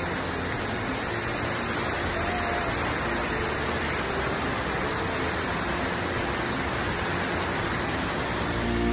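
Steady rushing roar of Narada Falls' water pouring down, with no breaks.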